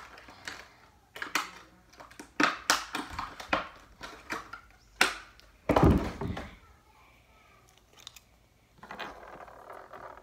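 Scattered clicks and knocks of small objects being handled on a desk, with one heavy thump about six seconds in and a soft rustle near the end.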